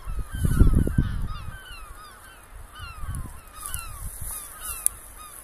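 Many gulls calling at once from the cliffs and shore, a dense chorus of short, falling cries that overlaps without a break. Wind buffets the microphone with a low rumble in the first second or so.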